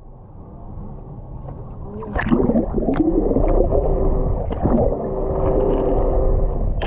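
Water splashing and gurgling against a boat, with a few sharp knocks, growing louder about two seconds in; a steady hum runs through the middle.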